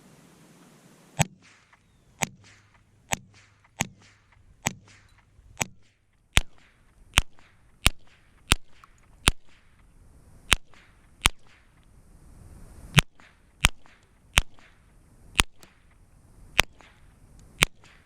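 Tippmann M4 .22 rifle fired semi-automatically in a string of about nineteen sharp cracks, roughly one shot every three-quarters of a second, with a short pause about two-thirds of the way through.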